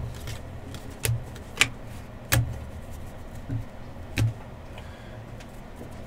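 Trading cards and packs being handled, with about six sharp taps and knocks at uneven spacing, the loudest a little over two seconds in.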